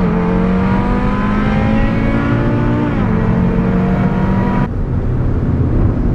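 Audi RS3's turbocharged five-cylinder engine heard from inside the car under hard acceleration: the engine note rises through a gear, drops at an upshift about three seconds in, and climbs again. The throttle closes about four and a half seconds in, and the engine note falls away.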